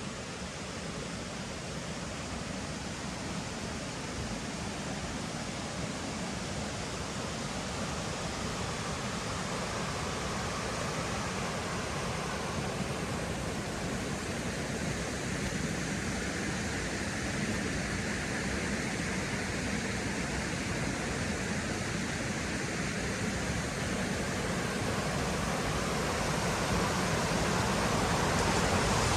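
Rushing water of a mountain stream (the Oirase stream): a steady noise that grows gradually louder.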